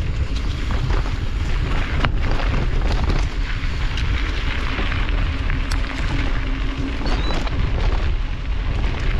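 Mountain bike riding over rough trail, heard as a loud, constant rumble of wind and vibration on the bike-mounted or helmet camera, with scattered clicks and knocks from the bike.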